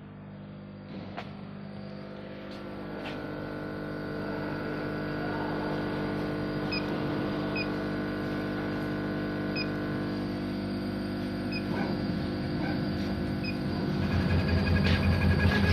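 1390 laser cutting machine running with a steady, multi-tone hum that grows louder, stepping up near the end as the laser head starts cutting the acrylic. Several short beeps from its control panel keypad sound in the middle as the keys are pressed.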